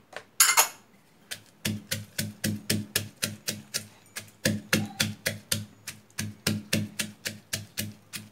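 Wooden pestle pounding in a clay som tam mortar: a steady rhythm of dull thuds, about three or four strikes a second, starting about a second in after a couple of sharper knocks.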